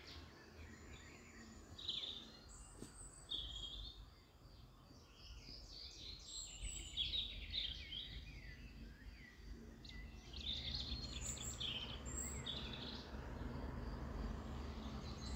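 Many small birds chirping and singing, short calls and trills one after another, over the low steady hum of a car creeping along a rough dirt track.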